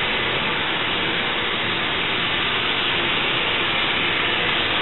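Combustion-air fan of a Nu-way NGN15 natural gas burner running steadily during pre-purge, a constant rush of air before ignition.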